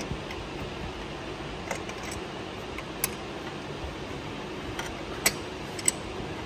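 Small wrench clicking against a metal fitting as it is turned in the aluminium sensor manifold: a few sharp metallic clicks, the loudest two about half a second apart near the end, over steady low background noise.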